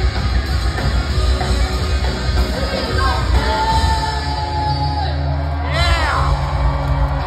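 Punk rock band playing live, loud: distorted electric guitar, bass and drums, with a woman singing and yelling into the microphone. A long note is held about halfway through, and a short swooping glide comes near two-thirds of the way in.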